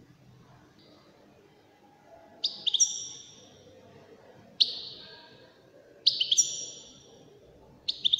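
Caged European goldfinch singing: after about two seconds of quiet it gives four short, high song phrases, each starting sharply and fading, with pauses between them.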